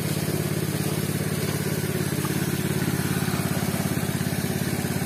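Small Robin engine running steadily with an even pulsing beat, driving the water pump that feeds water into the washing pool.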